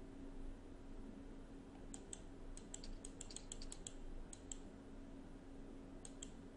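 Faint clicking at a computer: a quick run of about a dozen light clicks starting about two seconds in, then two more near the end, over a low steady hum.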